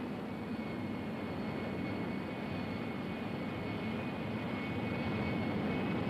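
Steady droning hum of a flying-saucer sound effect from an old sci-fi film, with a faint high whine over it.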